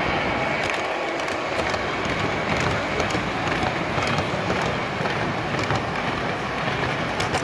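O gauge model trains running on three-rail track: a steady rumble of wheels and motors as the locomotives and passenger cars pass close by.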